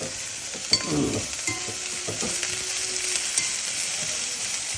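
Chopped onion and small green peppers sizzling as they fry in olive oil in a pan, with a utensil stirring them and making a few short clicks against the pan.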